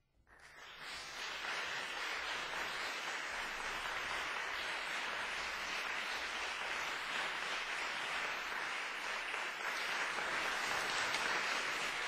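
Audience applauding. The clapping starts suddenly out of silence and keeps up steadily.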